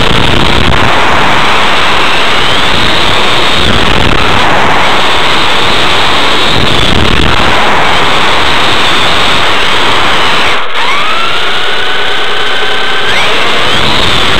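Brushless electric motor of a Kyosho Inferno GT RC car (Novak HV Pro 5.5) whining as the car drives, heard from a camera mounted on the chassis over loud, distorted rattle and tyre noise. The whine rises in pitch several times as the car accelerates, most clearly after a brief drop in level about eleven seconds in.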